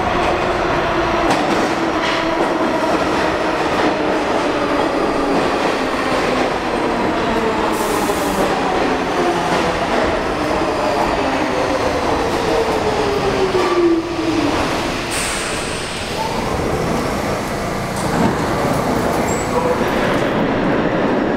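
R46 subway train entering an underground station, its traction motors whining and falling steadily in pitch as it slows, over continuous wheel-on-rail noise. The whine dies away about fourteen seconds in, leaving the rumble of the cars rolling past.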